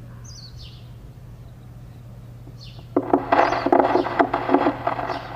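Small birds chirping, a few short falling calls over a low steady hum. About three seconds in, a much louder, harsh, irregular sound starts and carries on, choppy with many sharp strokes.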